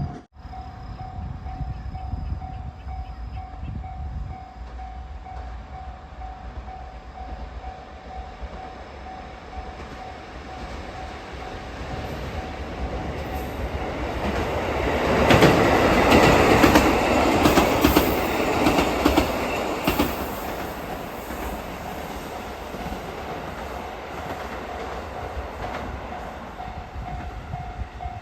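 Level-crossing warning bell ringing steadily while a KiHa 85 diesel limited express approaches and passes. Its noise builds and is loudest about halfway through, with rapid clatter of wheels over rail joints, then dies away while the bell keeps ringing.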